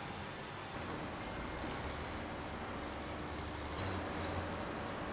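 Street traffic noise: a heavy vehicle's engine running, a steady low hum that grows louder about four seconds in.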